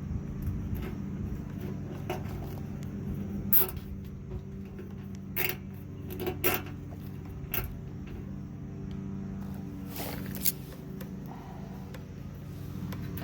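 Hands handling and tying up a truck marker light's wiring: scattered sharp clicks and short rustles, a dozen or so over several seconds, over a steady low hum.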